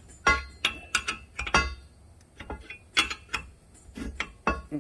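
Irregular series of sharp metallic clinks and taps, about a dozen, each with a short ring, as a steel exhaust-manifold spreader tool (a turnbuckle-style wedge) is handled and turned over.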